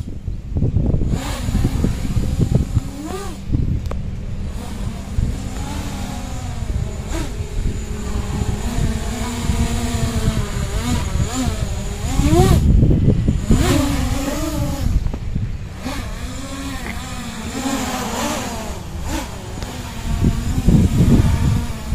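A 7-inch FPV quadcopter's motors and propellers whining, the pitch repeatedly rising and falling as the throttle is punched and cut through acro-mode flips and dives, over a heavy low rumble.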